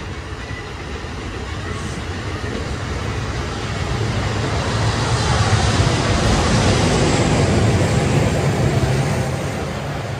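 A passing train: a steady rumble and rushing noise that swells to its loudest about six to eight seconds in, then fades.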